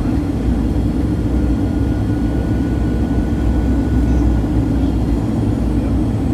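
Steady cabin noise of a Boeing 737-900 airliner in flight, its engine and air noise sitting low and even. A faint thin whine comes in about a second in and fades out around five seconds.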